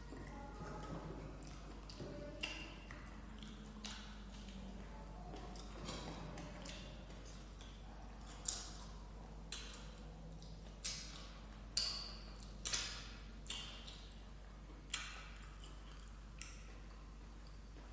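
Close-up eating sounds: soft chewing, then about eight sharp, wet smacks and clicks spaced roughly a second apart in the second half, from licking and sucking fingers after eating rice and stew by hand.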